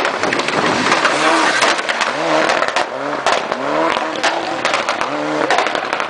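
Mitsubishi Lancer Evolution's turbocharged four-cylinder engine revving up and falling back over and over, about once a second, as it is driven hard through tight corners. Many sharp cracks and pops come from the exhaust, the sound of its anti-lag system.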